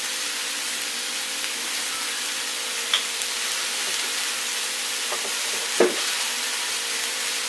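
Mushrooms, red onion and garlic sizzling in olive oil in a frying pan, a steady hiss. There are two short knocks, a faint one about three seconds in and a louder one near the end.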